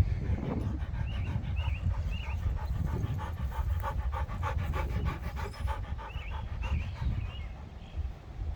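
A dog panting fast and hard, winded from running, the quick breaths most even for a few seconds in the middle.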